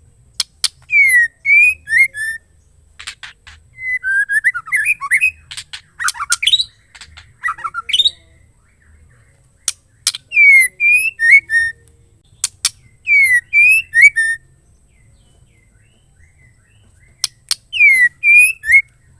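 Female white-rumped shama calling in five bouts. Each bout opens with one or two sharp clicks followed by a few quick whistled notes that dip and rise, and the second bout is a longer, more varied run.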